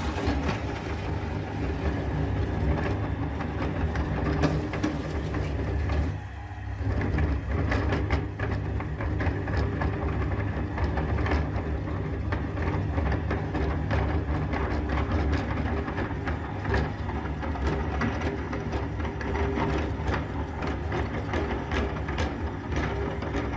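Electric meat grinder running steadily, crunching hard lollipop candy with a scatter of short cracks over its motor hum. The sound drops briefly about six seconds in.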